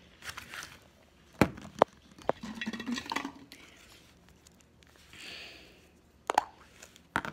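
A few sharp clicks and knocks of a small plastic slime container being handled and opened, with a short soft hiss between them.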